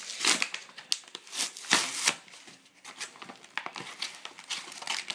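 A cardboard-backed plastic blister pack being torn open by hand: a run of crinkling and ripping, loudest in the first two seconds.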